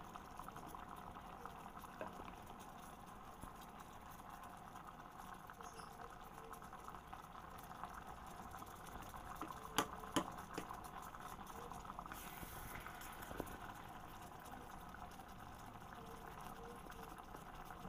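Chicken and broccoli cream sauce simmering in an electric cooking pot: a faint, steady fizzing bubble. Two sharp knocks of the plastic serving spoon about ten seconds in.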